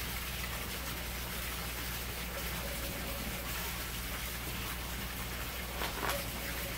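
Steady rushing background noise with a low hum under it, and a brief handling sound about six seconds in as the plastic sheet is pressed against the tank.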